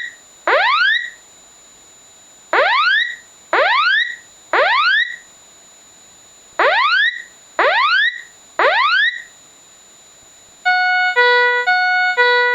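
Fire alarm sounding its electronic warning tone: rising whoops in groups of three, about one a second, with a short pause between groups. Near the end it switches to a repeating chime of alternating stepped tones.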